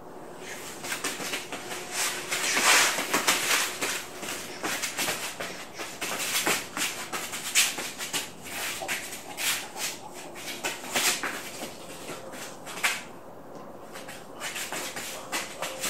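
A Jindo dog chewing and gnawing on a green chew toy held in a person's hand: irregular crunching and clicking of teeth on the toy, coming in uneven bouts.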